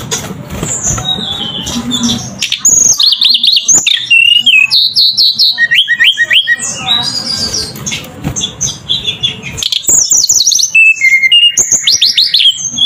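A bird chirping in quick runs of short, falling notes, loud and close, in two bouts: one from about three to six seconds in and another near the end.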